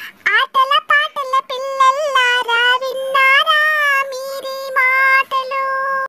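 A high, pitch-shifted cartoon-cat voice from the Talking Tom app singing a Telugu children's action rhyme, unaccompanied. It sings short phrases with held notes and small slides between them.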